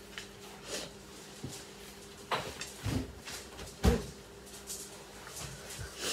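Short knocks and clatter of things being handled and set down on a table, the loudest knock about four seconds in, with light rustling of a paper towel wiping the table.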